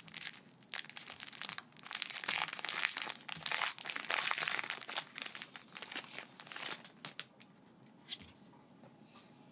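A Japanese Pokémon card booster pack's foil wrapper being torn open and crinkled by hand. The crackling is densest in the middle and dies away about seven seconds in, leaving a few faint clicks.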